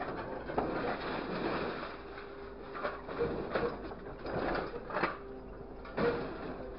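Grapple truck's hydraulic crane working scrap metal: the engine and hydraulic pump give a steady whining hum, and scattered metallic clanks and knocks come from the grab and the scrap, the loudest near the end.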